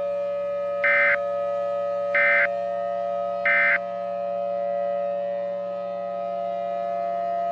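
Emergency Alert System end-of-message data tones: three short, identical buzzy digital bursts a little over a second apart, signalling the close of a tornado warning. They sound over a steady droning background tone.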